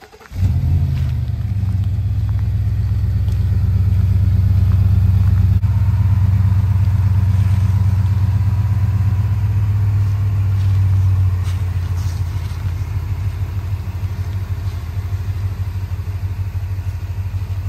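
Ford F-250 Super Duty pickup's engine idling with a steady, deep rumble.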